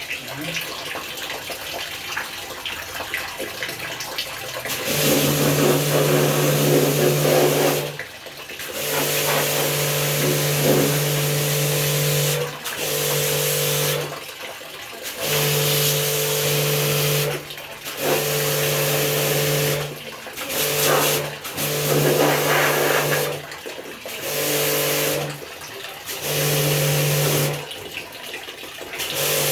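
Electric high-pressure water jet pump spraying water over an air conditioner, humming with a hissing spray. It starts about five seconds in and then cuts in and out about ten times, in runs of one to three seconds, as the spray trigger is pressed and released.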